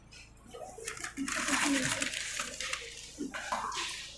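Faint background voices with light clicks and clinks of handling, after a near-silent start.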